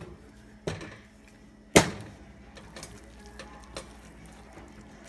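Kitchen tongs knocking and clicking against a clay cooking pot while chicken pieces are moved in salsa: two sharp knocks, the second and louder one a little under two seconds in, then lighter clicks, over a faint steady hum.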